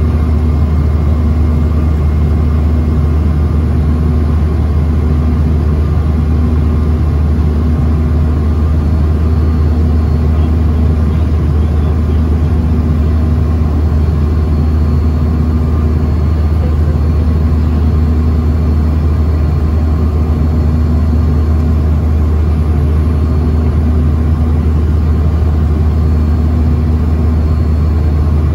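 Steady cabin drone inside a Bombardier CRJ-900 airliner in flight: a loud, even low rumble of airflow and the rear-mounted General Electric CF34 turbofans, with a few faint steady hums above it.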